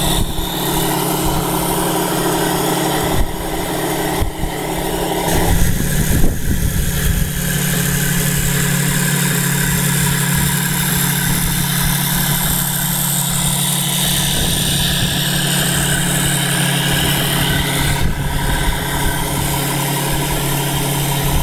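Radio-controlled 1:6 scale T-34 model tank running with a steady, engine-like hum. About five seconds in the sound changes, with a short louder, rougher stretch before it settles back to a steady running hum.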